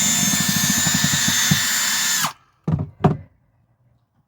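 A power drill runs steadily at full speed and cuts off about two seconds in. Two short knocks follow.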